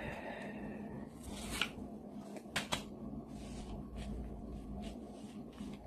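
Quiet room tone with a faint steady hum, broken by a few soft clicks and rustles about a second and a half and again about two and a half seconds in.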